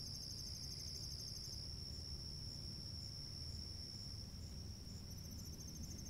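Night insects, mainly crickets, trilling steadily in a high continuous chorus. A rapidly pulsing trill drops out about two seconds in and starts again near the end, over a low steady rumble.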